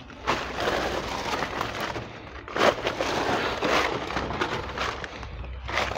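Dry leaves crunching and rustling underfoot as someone walks between logs: an irregular run of crackles, with one sharper crunch a little under three seconds in.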